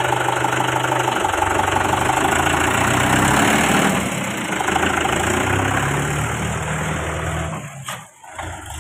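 Mahindra Yuvo 415 DI tractor's four-cylinder diesel engine running, its note shifting up and down a little; it dips briefly near the end before running on.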